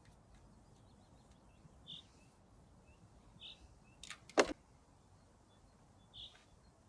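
Short high bird chirps every second or two over a faint background hiss, with two sharp clicks about four seconds in, the second one loud.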